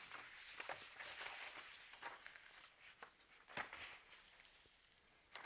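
Faint rustling of packaging being cleared off a table, with a few light knocks; the rustling dies away after about two and a half seconds.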